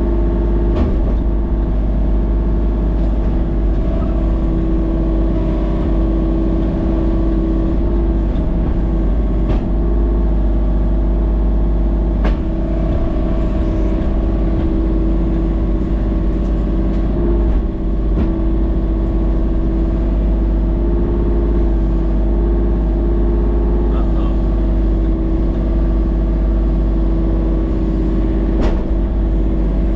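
Excavator's diesel engine running steadily at an even speed, with a few short knocks.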